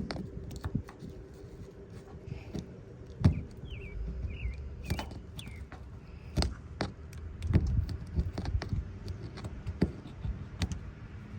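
Old windshield sealant being picked and scraped out of the seam at the top of a truck windshield: irregular clicks, taps and short scrapes.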